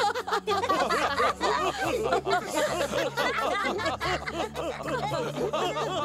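Several cartoon characters laughing together in many quick, overlapping chuckles, over a low steady music bed.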